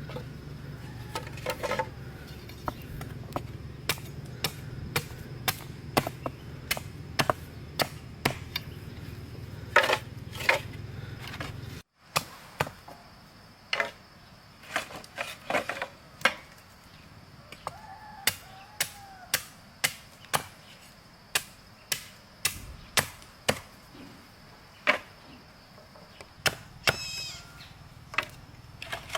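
Tool chopping into wood, with a long series of sharp, irregular strikes about one to two a second. A low hum sits under the first half.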